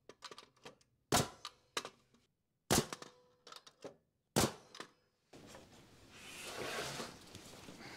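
Bostitch pneumatic framing nailer firing three times, about a second and a half apart, sharp cracks driving nails through 2x4 studs into the wall plate. From about five seconds in, a steadier scraping and shuffling noise takes over as the framed wall is lifted and moved on the concrete floor.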